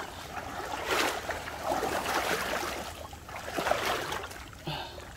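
Legs wading through thigh-deep water, the water swishing and sloshing in repeated surges.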